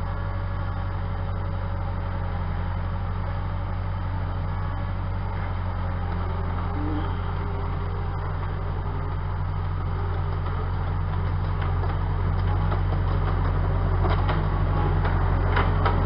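An engine running steadily at one speed, getting slightly louder in the second half, with a few sharp clicks or knocks near the end.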